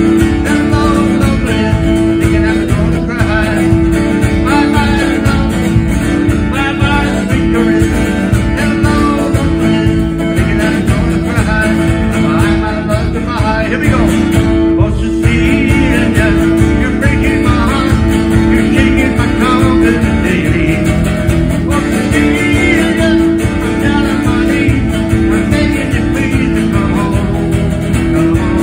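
A man singing a country-style song while strumming an acoustic guitar.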